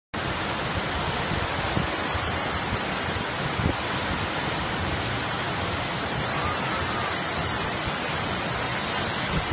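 Steady rushing noise of a fast typhoon floodwater torrent, mixed with storm wind and rain, with low rumbles from wind on the microphone.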